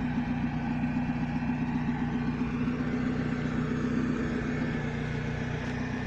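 Off-road vehicle's engine idling steadily.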